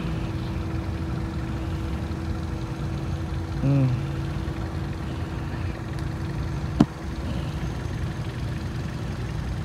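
Steady low mechanical rumble with a constant hum, a brief falling voice sound about four seconds in, and one sharp click about seven seconds in.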